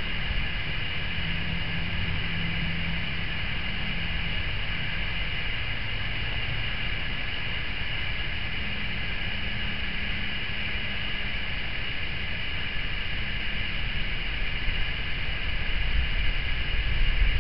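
Steady outdoor background hiss and low rumble, growing louder and more uneven near the end.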